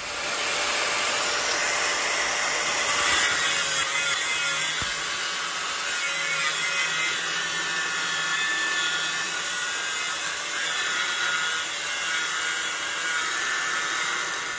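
Handheld angle grinder running steadily under load, its disc grinding the edge of a steel angle bar: a continuous gritty hiss over a faint steady whine.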